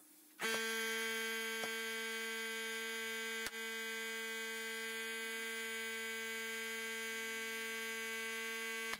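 Electric air compressor motor switching on and running with a steady hum while a tire is inflated through a hand-held inflator gauge. A few light clicks sound over it.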